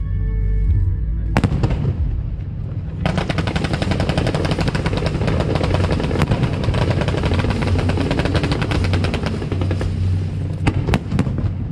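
Fireworks display: a sharp bang about a second and a half in, then a dense, fast crackling barrage from about three seconds until near the end, closing with two or three separate loud bangs, over background music.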